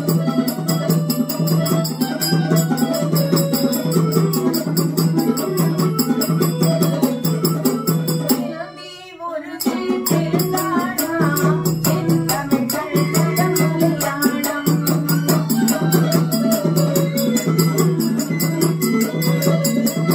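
A woman singing a Tamil folk song over a fast, even rattle-like percussion rhythm and a regularly pulsing low note. Everything drops out briefly about nine seconds in.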